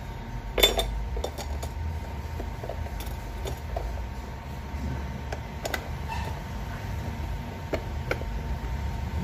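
Light clicks and clatter of a metal mounting bracket and plastic parts being handled and fitted over a coffee maker's heating element, with one sharper clack under a second in, over a low steady background hum.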